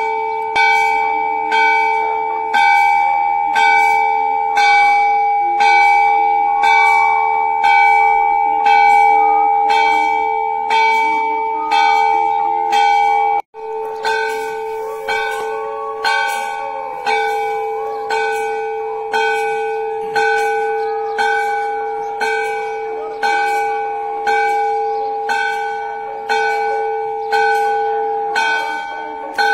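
Large Hindu temple bell struck over and over, about once a second, each strike ringing on into the next. The ringing briefly drops out about halfway through.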